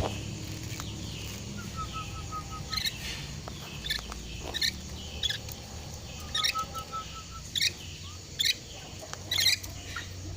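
Nuri (lory) parrot giving short, sharp chirps and squawks every second or so, with two quick runs of evenly spaced notes, one about two seconds in and one about six seconds in.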